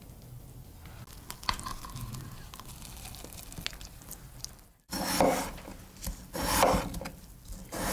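A chef's knife cutting through raw peeled potatoes on a wooden cutting board: three crunchy slicing strokes about a second apart, starting about five seconds in, the last just at the end. Before that, only faint scrapes and light clicks of a spoon in a glass baking dish.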